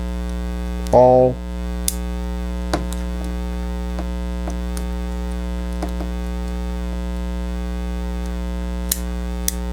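Steady electrical mains hum throughout, with a scattering of small faint clicks as the metal implements of a Leatherman Juice XE6 multi-tool are handled and folded out.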